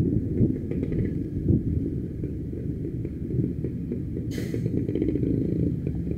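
Motorcycle running on the move, a steady low rumble of engine and wind. A short hiss about four seconds in.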